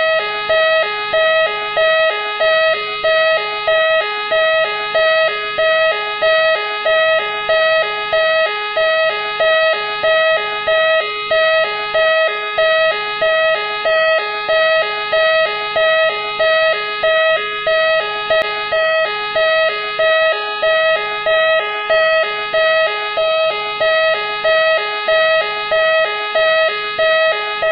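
The siren of Machine X, the police car from Seibu Keisatsu, sounding in a loop: two pitches alternating steadily, a high-low cycle about once a second.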